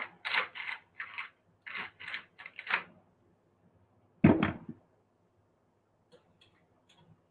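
Pepper dispenser worked over a pot of layered cabbage in about eight quick rasping strokes, followed about four seconds in by a single sharp knock, the loudest sound.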